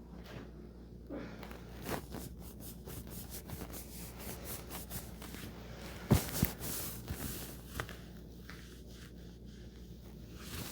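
Soft rustling and handling on a treatment table, then one sharp crack about six seconds in, followed by a couple of smaller pops: joints cavitating during a chiropractic adjustment.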